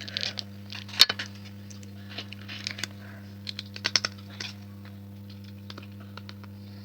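Close-up eating sounds: chewing and lip-smacking, with a run of short sharp clicks, the loudest about a second in, over a steady low hum.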